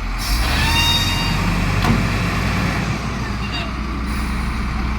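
Heavy truck diesel engine running steadily under load, with a thin rising whine near the start and a single sharp knock about two seconds in.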